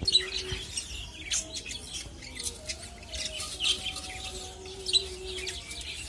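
Budgerigars chirping and chattering in many short, high calls, with a few longer held notes. A single sharp knock sounds at the very start.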